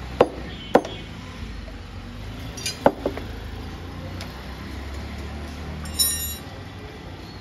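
Butcher's cleaver chopping through beef ribs on a wooden chopping block: two sharp strikes in the first second and two more about three seconds in. About six seconds in, a metal blade clinks against steel with a short ringing.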